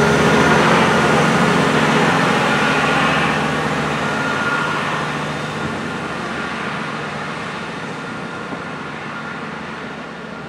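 East Midlands Trains diesel multiple unit running away along the line, its engine drone and a high whine fading steadily as it recedes.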